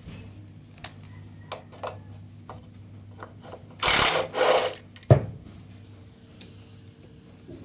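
Clicking and clattering of tools and parts being handled during air-conditioner cleaning work, over a low steady hum. About four seconds in come two short, loud hissing bursts, followed by a single sharp knock.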